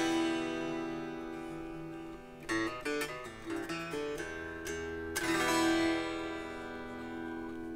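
Epiphone ES-339 semi-hollow electric guitar played unplugged, its strings heard acoustically. A strummed chord rings out and fades, a short run of picked notes follows about two and a half seconds in, and another chord is strummed about five seconds in and left to ring.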